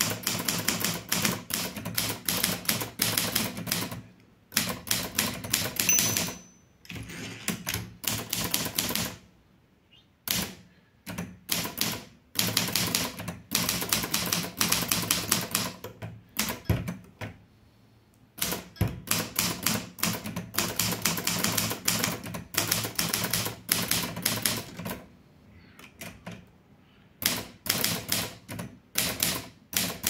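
Litton Royal 203 manual portable typewriter being typed on in quick runs of keystrokes, the typebars clacking against the platen, with short pauses between runs. A brief bell ding about six seconds in: the margin bell warning that the line is nearly at its end.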